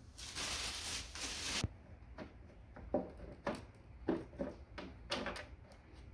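Treadmill parts being handled during assembly: a scraping rustle lasting about a second and a half, then a series of light knocks and clatters spaced unevenly through the rest.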